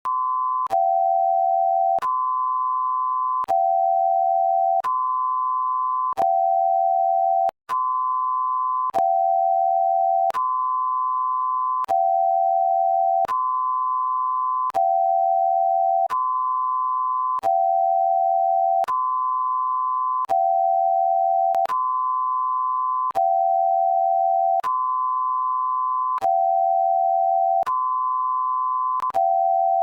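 Homemade Emergency Alert System–style alarm: two steady electronic tones alternate high and low, each held about a second and a half, with a click at every switch. The pattern runs on without a break except for one brief dropout about eight seconds in.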